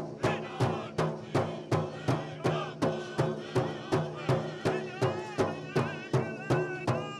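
Pow wow drum group singing a chicken dance song over a big drum struck in a steady beat, about three beats a second. High voices hold long wavering notes near the end.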